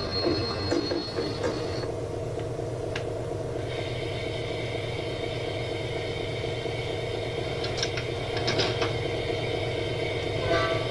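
Model diesel locomotive running along a model railway layout with a goods train, giving a steady motor hum and wheel noise. There are a few sharp clicks of wheels over the track, and a steady higher tone comes in about four seconds in.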